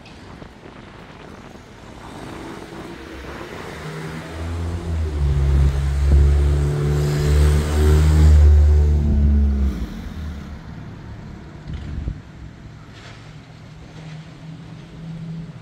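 A motor vehicle with a deep engine passing by on the street. It builds up over a few seconds, is loudest around the middle, and fades away by about two-thirds of the way through.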